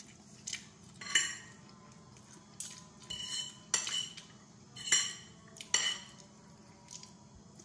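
Two metal forks clinking and scraping against a plate as leftover noodles are pushed together, about seven separate clinks and short scrapes at uneven intervals.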